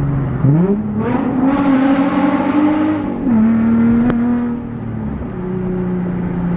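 Car engine accelerating: its note climbs sharply about half a second in, holds, then drops to a lower steady note twice as it eases off.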